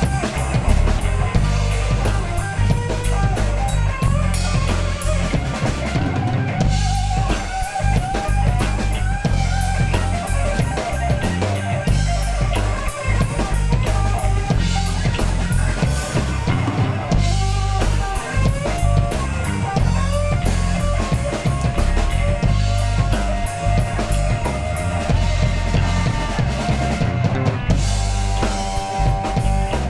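Live rock trio playing an instrumental passage, with no vocals: a busy drum kit with kick, snare and rimshots over bass guitar, and held guitar notes on top.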